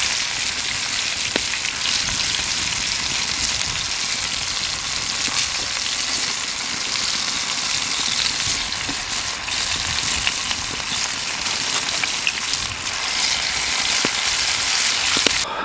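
Floured fish fillets sizzling in hot oil in a steel frying pan: a steady frying hiss that cuts off suddenly near the end.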